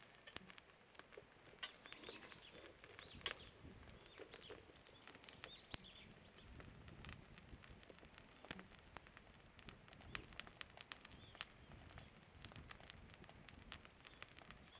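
Firewood fire crackling faintly, with irregular sharp pops throughout. Birds chirp in the first half.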